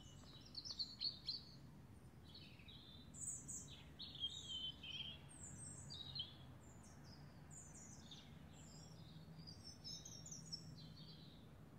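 Songbirds chirping and singing in quick, short phrases that overlap and follow one another throughout, over a faint steady low hum.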